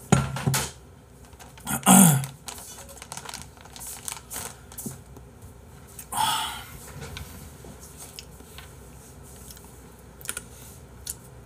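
Typing on a computer keyboard, light scattered key clicks, with a few louder short noises near the start, about two seconds in and about six seconds in.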